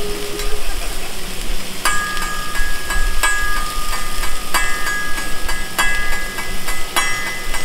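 Metal spatula and knife clanging on a steel teppanyaki griddle. Sharp strikes come at an uneven beat from about two seconds in, each leaving a ringing tone, over a steady sizzle and hiss from the hot plate.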